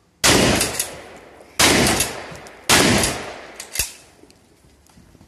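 Shotgun fired three times, a little over a second apart, each blast trailing off in a long echo. A shorter, sharper knock follows near the fourth second.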